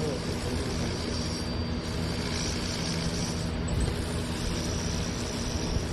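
Electropolishing weld-stain removal unit running: a steady electrical hum with several fixed tones under a constant hiss, the hiss rising a little in brightness a couple of times.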